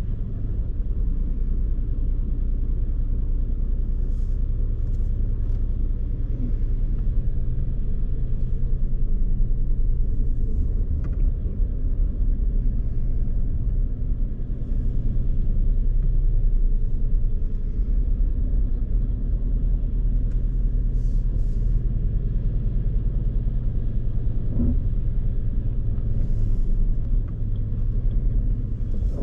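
A car driving, a steady low engine and road rumble without a break and with no crash or impact in it.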